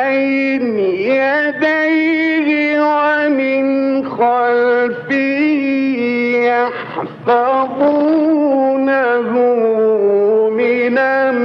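A male Quran reciter chanting in the ornamented mujawwad style, drawing out long held notes with melodic turns. The voice breaks off briefly about five and seven seconds in.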